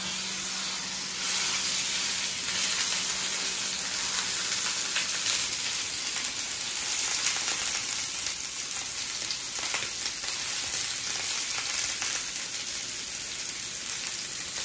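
Beef shoulder searing in a frying pan of hot olive oil: a steady sizzle that starts suddenly as the meat goes into the pan and grows louder about a second later. The meat is being seared to build a browned crust.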